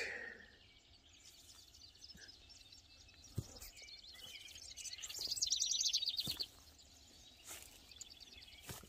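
Outdoor birdsong: faint high trilling, with one louder rapid trill lasting about a second and a half around five seconds in, and a few soft clicks.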